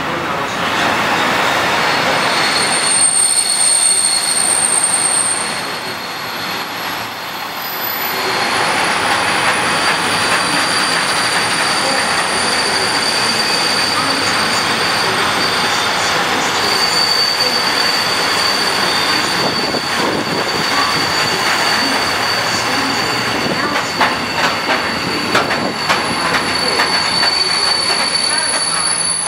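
Freight train of bogie box vans rolling past close by: a steady rumbling rush of wheels on rail with a high, steady squeal from the wheels over it. A run of sharper clanks comes near the end as wagons pass over rail joints.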